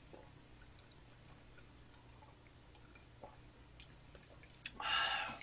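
Faint scattered ticks and small clicks in a quiet room, then a short, loud, breathy mouth sound about five seconds in from a person drinking from a glass mug.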